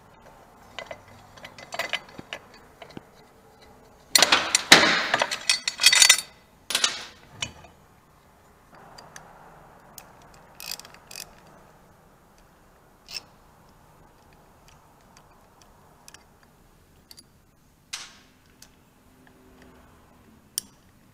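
Hand ratchet with an Allen socket on a long extension clicking as small bolts are backed out, loudest in a dense run of rapid clicks from about four seconds in. Scattered clinks of metal tools and parts around it.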